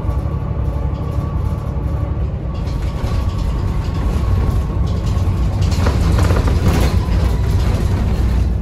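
Isuzu Erga city bus engine running under way, its low drone growing louder about a third of the way in as it gathers speed, with a rattling, hissing stretch a little past the middle.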